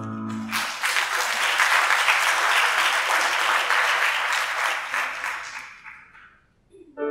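Theatre audience applauding. The clapping starts as the last held note of the music ends and dies away after about five seconds.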